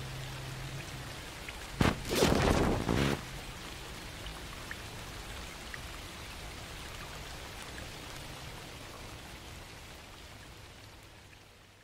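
Steady rain-like hiss with scattered small drop ticks, fading out near the end. About two seconds in comes a sharp crack, then a loud rumbling burst lasting about a second. A low held tone drops out within the first second.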